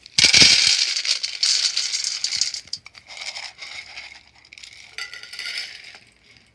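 Dry cat food poured into a tin can, the pieces rattling in. It starts with a loud rush and a few knocks, then trails off into smaller pours about three and five seconds in.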